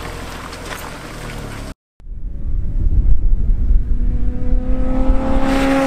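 Two sports cars, a Toyota MR2 Roadster and a Honda S2000, driving past on a country road: a loud low rumble with the engine note climbing as they approach, then dropping sharply as the leading car passes, near the end. Before that, a couple of seconds of steady rumble and a brief dropout.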